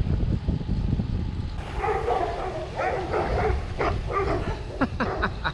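A dog barking and yelping repeatedly, starting about a second and a half in, over a steady low rumble of wind on the microphone.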